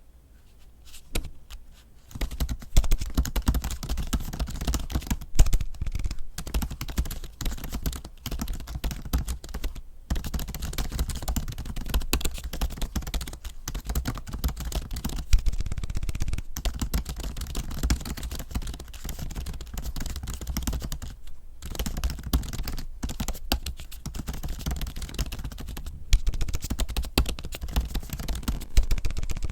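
Fast, continuous typing on an M1 MacBook Pro's built-in keyboard covered with a keyboard skin: a dense stream of key presses after a few single keystrokes in the first two seconds, broken by a couple of short pauses.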